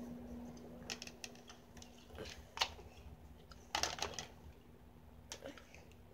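Irregular light clicks and taps of a phone being handled, the sharpest about two and a half seconds in and a quick cluster around four seconds in.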